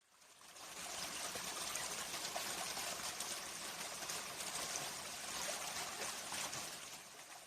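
Flowing water of a stream, a steady babbling rush that fades in over about a second.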